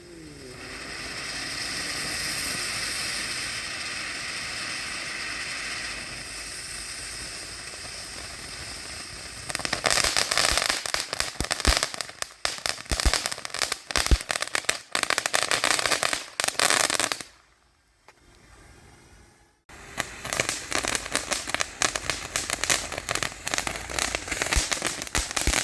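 Backyard consumer fireworks going off. A steady hissing spray runs for the first nine seconds or so, then gives way to dense, rapid crackling. The crackling breaks off for about two seconds and then resumes.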